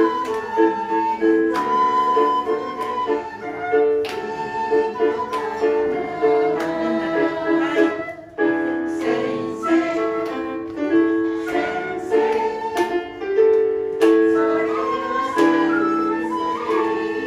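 A quena, the Andean end-blown notched flute, plays the melody of a Japanese popular song over piano chords from an electronic keyboard.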